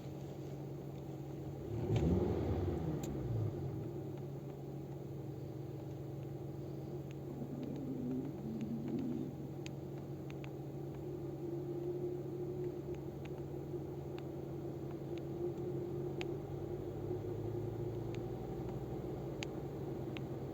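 Volvo V50 engine running, briefly revved about two seconds in and then settling back to a steady idle hum. The engine is drawing in unmetered air through a vacuum leak: the lid of the crankcase ventilation membrane is not seated properly.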